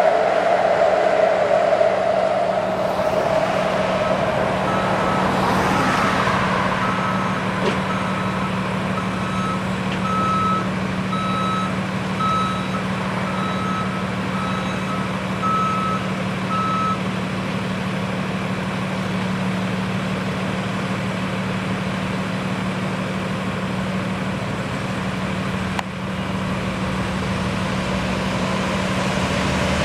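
A vehicle's reversing alarm beeping at a steady pace, roughly one beep every 0.7 seconds, for about twelve seconds starting some four seconds in. Under it run a steady low hum and constant street noise. A louder rush fades over the first few seconds.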